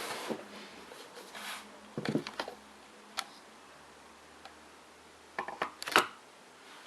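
Handling noises while unboxing a hardcover book: a brief rustle, then scattered taps and knocks of the book and its packaging, the loudest about six seconds in.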